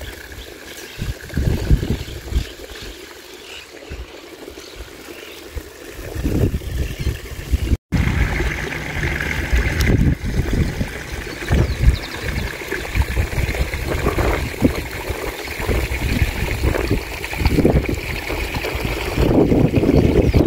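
Creek water trickling at the bank, mixed with gusty wind buffeting the microphone in irregular low rumbles, heavier after the first six seconds.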